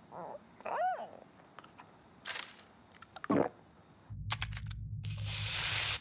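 Cartoon soundtrack: the ostrich character gives a short vocal with a rise and fall in pitch about a second in, followed by a few light clicks and taps. About four seconds in a low rumble starts, joined a second later by a loud rushing hiss, and both stop suddenly.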